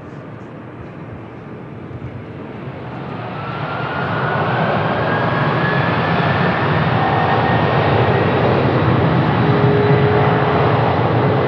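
Jet airliner engines getting louder over a couple of seconds, with a rising whine, then running loud and steady.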